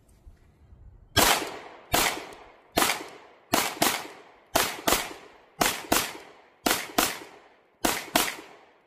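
Pistol fired thirteen times, starting about a second in: single shots at first, then mostly quick pairs, each shot trailing off briefly.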